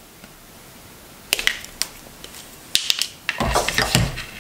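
Wire strippers snapping and clicking as they strip insulation off 22-gauge stranded hook-up wire: a few sharp clicks about a second and a half in and another cluster near three seconds. Duller knocks and rubbing follow as the tool and the wire are handled.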